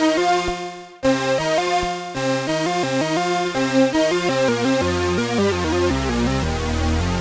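Behringer Poly D analog synthesizer playing a quick run of short pitched notes, with a brief break about a second in; a low bass part comes in after about five seconds.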